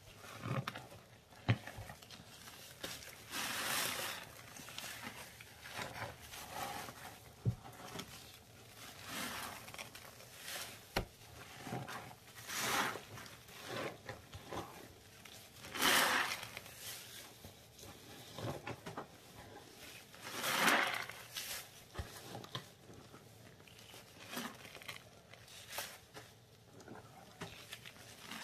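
Gloved hands squishing and pressing wet, foamy recycled paste, making irregular wet squelches and crackles with small clicks between them, a few of them louder.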